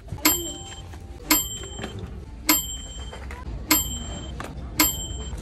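A bright ringing ding, like a small bell, repeating five times about once a second over a low steady hum.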